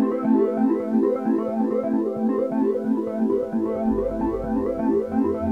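Background music: a quick, repeating keyboard melody, with a pulsing bass line coming in about two-thirds of the way through.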